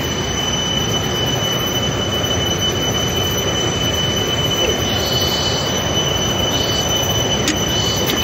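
Steady rush of flowing river water, with a continuous high-pitched whine over it.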